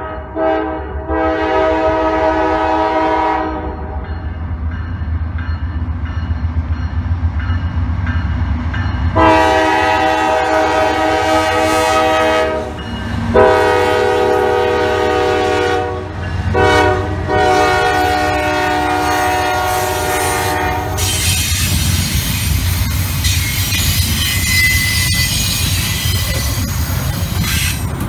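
Locomotive air horn sounding a chord in long blasts: one fades out a few seconds in, then three more come close together, over the low rumble of a train. After the horn stops, the train rolls by with rail clatter and a faint wheel squeal.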